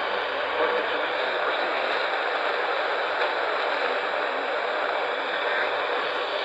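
AM radio static: a steady hiss with no programme audible.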